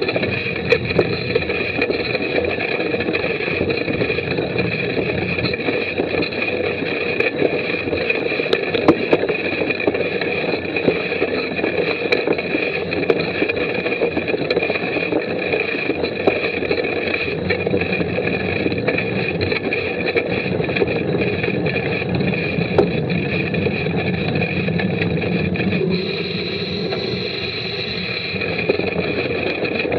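Mountain bike ridden over a wet, muddy dirt-and-grass trail, heard through a mounted action camera: a steady muffled rumble of tyres and wind, with scattered rattles and knocks from the bike.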